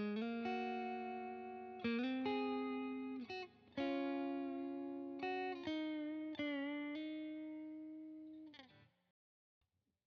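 Single-pickup electric guitar with an alder body and maple neck, played through a crunch tone (light overdrive): chords struck every second or two and left to ring, with a wavering vibrato on a held note. The last chord dies away to silence about a second before the end.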